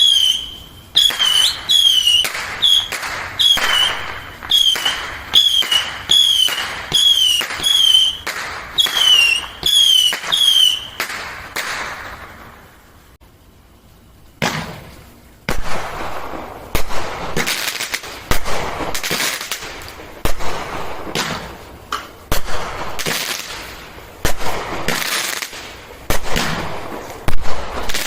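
Consumer fireworks going off. First comes a run of about fifteen shots, a little over one a second, each with a short high whistling tone. After a pause of two or three seconds, a denser, irregular barrage of bangs and crackles follows.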